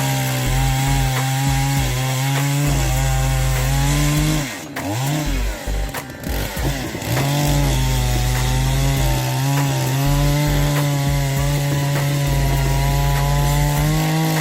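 Chainsaw running at high revs and cutting wood. A little over four seconds in, the engine speed sags and wavers, then recovers and holds steady, rising slightly in pitch toward the end.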